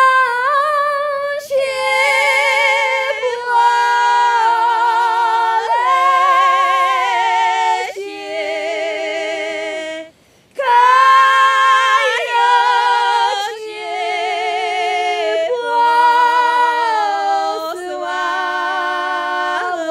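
Two women singing an unaccompanied two-part folk song in Carpathian highland polyphonic style. The notes are held long with vibrato and move in parallel harmony, with one short break about ten seconds in.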